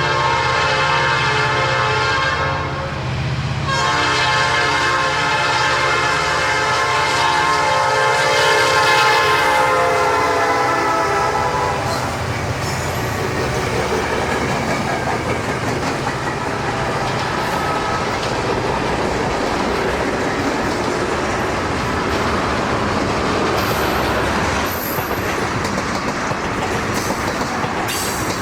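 A diesel locomotive's multi-chime air horn sounds a long blast, a brief break and then a second long blast over the engine's rumble, the chord sagging slightly in pitch as it passes. The horn ends about twelve seconds in, leaving the steady rumble and clatter of the train's cars rolling by on the rails.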